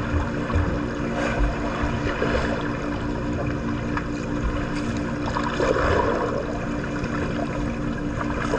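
Water splashing and churning in a swimming pool, over a steady low hum.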